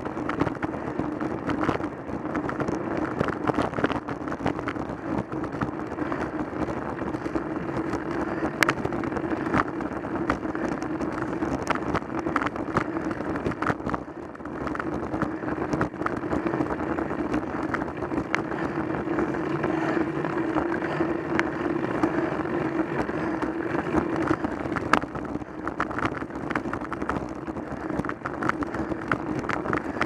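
A road bike being ridden, heard from a camera carried on the moving bike: steady wind and tyre noise with a constant low hum and frequent small rattling clicks, dipping briefly about halfway through.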